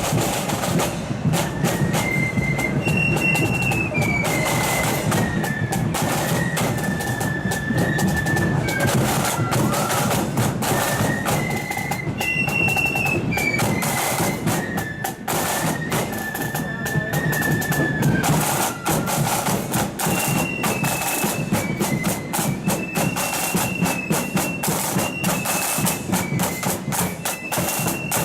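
Loyalist marching flute band playing a tune: massed flutes carry a high melody over rapid snare drum strokes and a steady bass drum beat.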